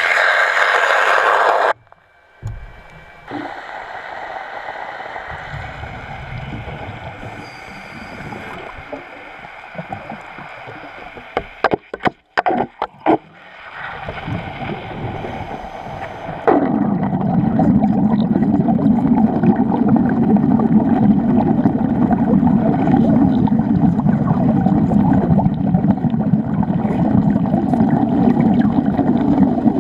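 Underwater wet arc welding: after a quieter stretch with a few sharp clicks, the arc strikes a little past halfway and runs steadily amid bubbling water. A loud rush of noise fills the first two seconds before a sudden cut.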